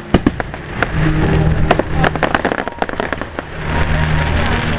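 Fireworks display: a rapid, irregular series of sharp bangs and crackling reports from bursting shells.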